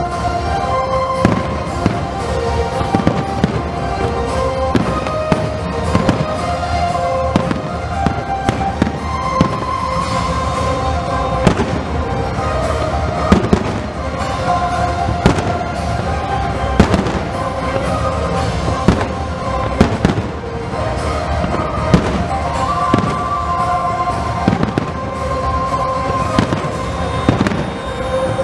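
Aerial firework shells bursting in quick, irregular succession, many sharp bangs and crackles, over music playing steadily throughout.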